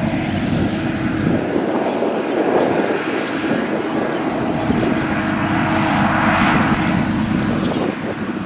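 SAKPATTANA SS-300 Black Bird combine harvester running, its five-cylinder 170-horsepower engine and threshing machinery making a steady, dense drone with a thin high whine held over it.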